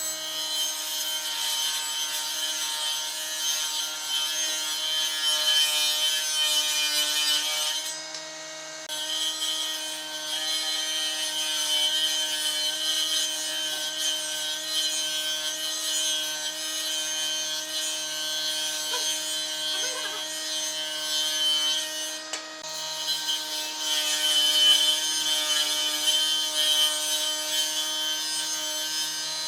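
Electric power tool working wood: a steady motor hum under a loud high hiss of the tool cutting or abrading the wood, which lets up briefly twice while the motor keeps running.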